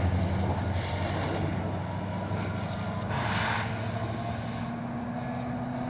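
BNSF coal train rolling past, its low rumble fading as it moves away, with a brief hiss about three seconds in.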